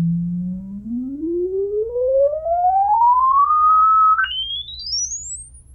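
Sine test tone from a frequency-generator app played through a bare 8-inch Energy polypropylene woofer whose foam surround has rotted away. It holds a low hum near 170 Hz, then glides steadily up into a high whistle, jumping up in pitch about four seconds in and growing fainter as it climbs.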